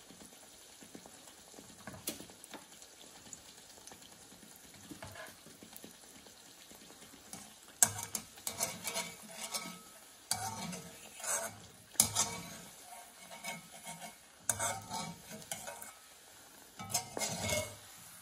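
A pitha (rice-flour and jaggery batter fritter) frying in hot oil with a faint, steady sizzle. From a little before halfway, a wire-mesh spider skimmer scrapes and clinks against the metal karahi again and again as the pitha is turned over.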